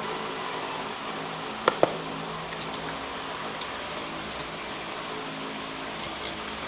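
Two sharp clicks in quick succession about a second and a half in, as parts and packaging are handled, over a steady background hum.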